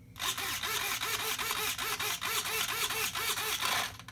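Corona 939MG metal-gear servos driving the wing's elevons back and forth: a whine rising and falling about four times a second over a steady hiss, stopping shortly before the end.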